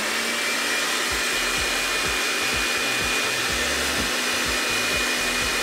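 Electric hand mixer running steadily with a constant whine, its beaters whipping egg whites in a glass bowl toward the frothy stage. It cuts off suddenly at the end.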